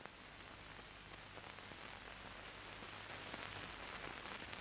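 Faint, steady hiss with light crackles: the background noise of an old film transfer running with no programme sound on it. It swells slightly and cuts off suddenly at the very end.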